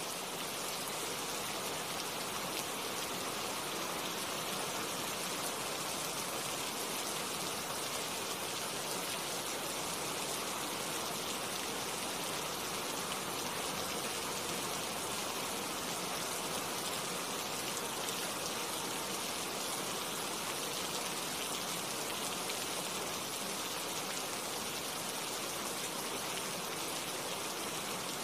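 Steady rain falling on tree foliage: an even, unbroken hiss of drops on leaves.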